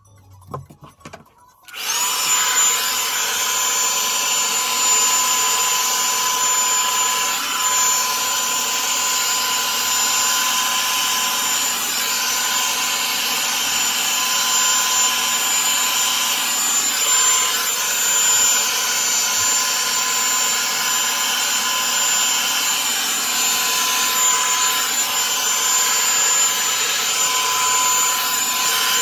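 Revlon One-Step hot-air brush hair dryer switched on about two seconds in, then running steadily: a loud rush of blown air with a steady high motor whine.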